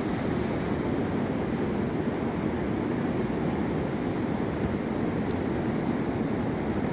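Steady rush of a fast river running through rapids, an even churning noise with no breaks.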